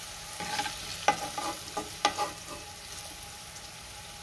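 Potato cubes frying in hot oil in a nonstick kadhai, a steady sizzle, while a metal slotted spoon scrapes and taps against the pan about five times in the first half as the fried potatoes are lifted out.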